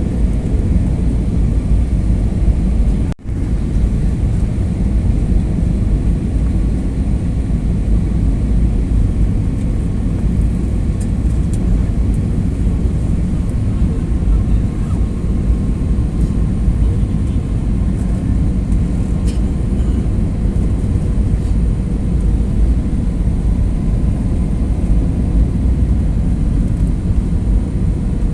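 Steady, low rumbling cabin noise of an airliner in flight, with a faint steady whine above it. The sound cuts out for an instant about three seconds in.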